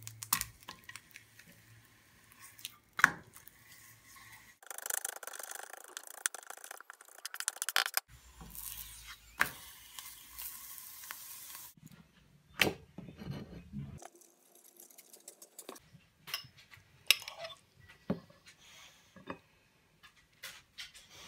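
Cooking sounds in several short cuts: a metal spatula knocking and scraping in a frying pan, a few seconds of sizzling while a corn tortilla heats in the pan, and near the end a fork clinking on a plate as scrambled eggs are pushed onto it.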